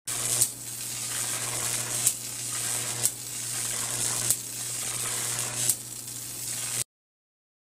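Jacob's ladder high-voltage arc crackling and buzzing between two diverging wires over a steady low hum. Five sharp snaps come about one to one and a half seconds apart as the arc breaks and re-strikes. The sound cuts off suddenly near the end.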